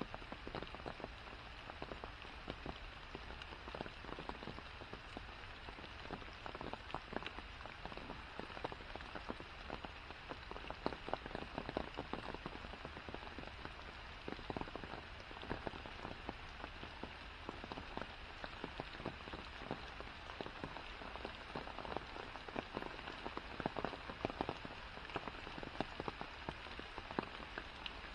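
Steady rain falling on forest foliage and a wet path: an even patter with many close, separate drop hits scattered irregularly through it.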